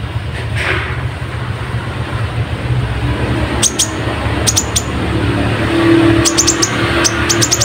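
Kolibri ninja sunbird chirping: short, sharp, high-pitched notes, a few at first and then quick runs of them near the end, over a steady low hum.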